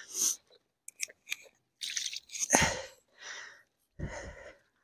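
Handling noise as a carp is turned over by hand on the bank: scattered rustles and clicks, with a single thump a little past halfway.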